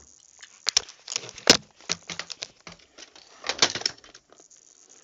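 Handling noise: irregular clicks and knocks with rustling as a hard plastic toy and the recording device are moved about. The loudest knock comes about a second and a half in, and a burst of clicks follows about three and a half seconds in.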